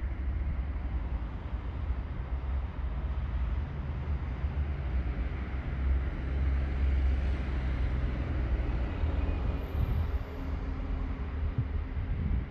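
Steady outdoor ambience: a low rumble with a fainter hiss above it, and no distinct events.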